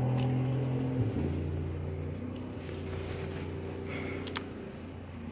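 A low, steady drone of held tones that shifts pitch about a second in and again about two seconds in, slowly fading, with a faint click near the end.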